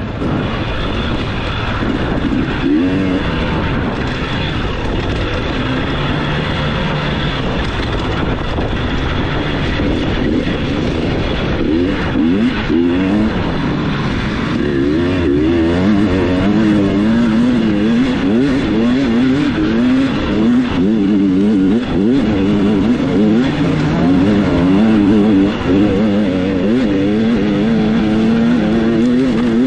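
Off-road dirt bike engine heard up close under race riding, its pitch rising and falling constantly as the throttle is opened and closed.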